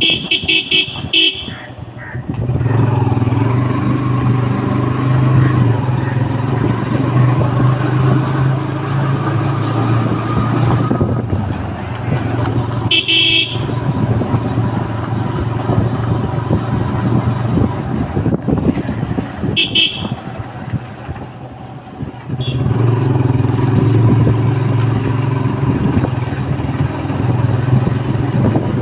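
Motorcycle engine running as it rides along, pulling harder about two seconds in, easing off in the middle and picking up again past twenty seconds. Short horn beeps sound at the start, again about thirteen seconds in and about twenty seconds in.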